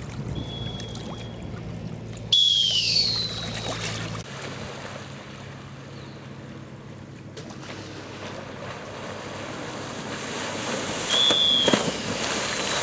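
Water rushing and splashing as bottlenose dolphins pull a swimmer in a life jacket through the water, building to heavy splashing near the end. A sudden loud splash comes about two seconds in. Two short falling whistles sound, one with that splash and one near the end.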